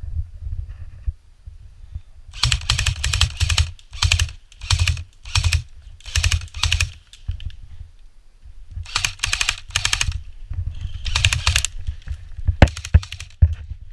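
Airsoft guns firing in a series of short full-auto bursts, each a rapid string of clicking shots, with a few single shots near the end.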